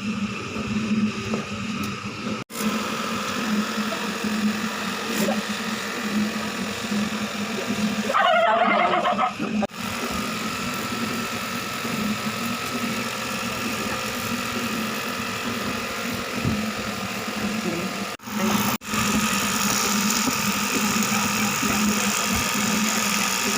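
A motor running with a steady low hum and steady noise over it, broken by a few abrupt cuts; about eight seconds in, a brief wavering higher-pitched sound lasts for a little over a second.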